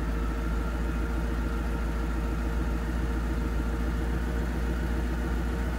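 Ford Mustang GT's V8 idling steadily, a low, even rumble with no change in pitch.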